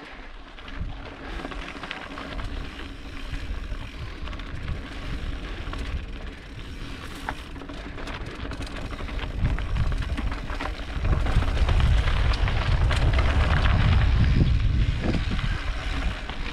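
Mountain bike riding over a rugged rocky trail: tyres crunching and the bike rattling, with many small clicks. Wind rumbles on the camera microphone throughout and gets louder for a few seconds past the middle.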